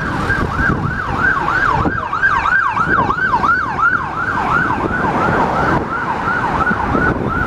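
Electronic siren yelping, a quick rising-and-falling sweep repeated about three times a second, loudest in the middle and fading toward the end, over the low rumble of road traffic.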